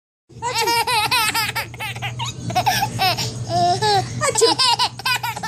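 Baby laughing hard in several bursts, each a quick run of high-pitched, wavering giggles.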